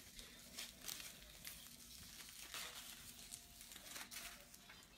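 Aluminium foil being squeezed and twisted by hand into a rod, giving faint, irregular crinkling crackles.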